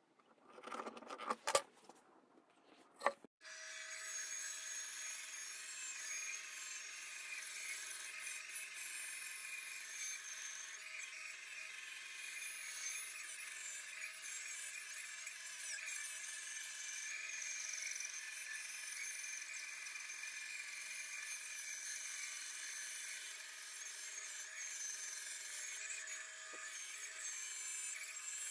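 Pencil scratching and a steel ruler clicking on wood for the first few seconds, then a band saw running steadily as its blade cuts a curve through a thick softwood block, a steady hiss of the cut over a faint hum.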